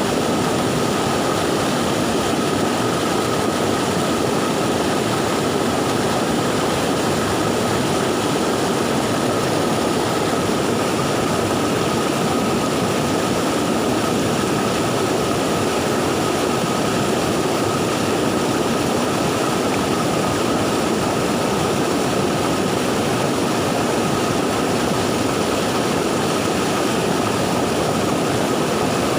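Swollen, fast-flowing river water after a flood, rushing with a loud, unchanging roar. A steady high thin tone runs under it.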